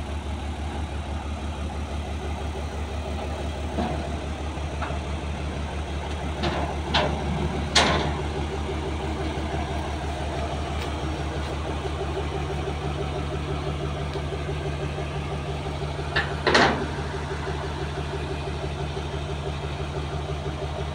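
Motor grader's diesel engine idling with a steady, even pulse. A few sharp knocks are heard around a third of the way in and again about three quarters in.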